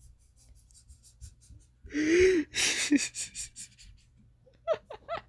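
A person laughing hard: a loud wheezing gasp about two seconds in, another just before three seconds, then a quick string of short laughing bursts near the end.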